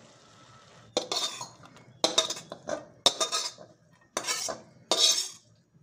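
A spatula scraping and knocking against a metal kadhai as steamed radish pods are scooped out into a steel plate: about five sharp scrapes, roughly one a second.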